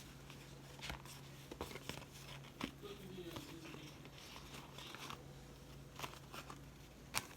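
Faint rustling and crinkling of packaging as face masks are handled, with scattered light clicks, the sharpest near the end, over a steady low hum.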